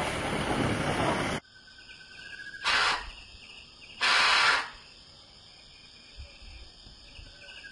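Loud rushing noise for about the first second and a half, cutting off suddenly to a steady high insect chorus, with two short, loud bursts of noise about three and four seconds in.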